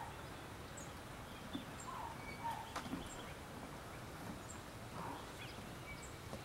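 Faint outdoor background with scattered short bird chirps and calls.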